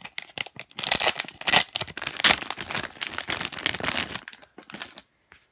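Thin plastic packaging bag crinkling and rustling as it is opened and a foam squishy toy is pulled out of it by hand. The crinkling is dense and irregular and dies away about four seconds in.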